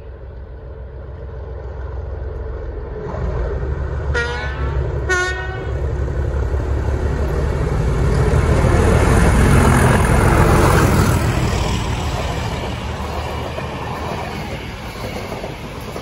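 Class 37 diesel locomotive hauling a test train through a station: two short horn blasts about a second apart, about four seconds in, then the engine and wheels on the rails growing loud as it passes and fading away.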